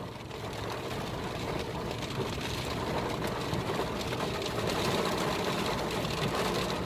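Heavy rain drumming on a car's roof and windshield, heard from inside the cabin as a dense, steady patter that grows slightly louder.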